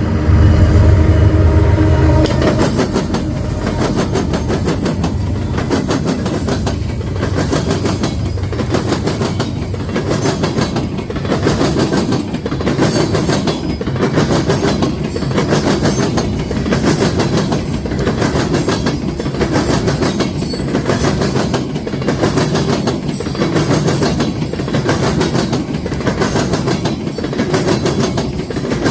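Loud, continuous mechanical rumble with a repeating clatter. It opens with a strong low pitched tone that stops about two seconds in.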